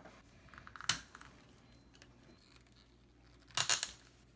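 Hand tools working on an old transformer's metal end cover: a sharp click about a second in, then a short scraping rasp near the end as a screwdriver and pliers work the cover loose.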